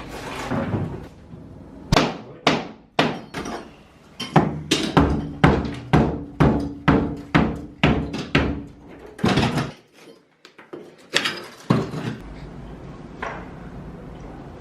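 Hammering: a run of sharp blows, about two a second, while fittings are knocked apart during kitchen dismantling. The blows stop abruptly, and after a short near-silent gap a few more knocks follow.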